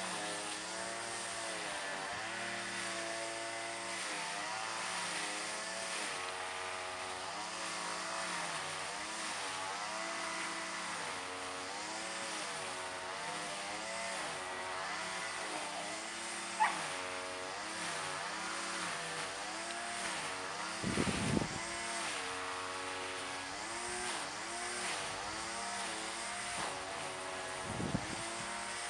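Diesel engine note of a CrossCountry HST's class 43 power cars as the train draws slowly in, its pitch rising and falling. A sharp click about halfway through, and a few short low thumps later on.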